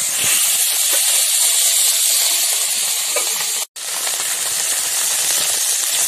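Small puti fish sizzling steadily as they fry in hot mustard oil in a kadai, being turned with a metal spatula. The sizzle breaks off for an instant about three and a half seconds in.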